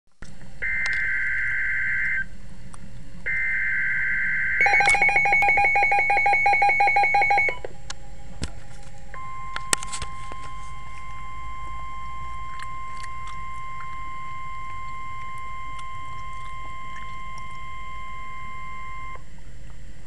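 A NOAA Weather Radio receiver sounding a severe thunderstorm warning. First come the screeching digital SAME header bursts, then about three seconds of rapid pulsing alert beeps at about four a second. After that the steady 1050 Hz warning alarm tone holds for about ten seconds and cuts off shortly before the end.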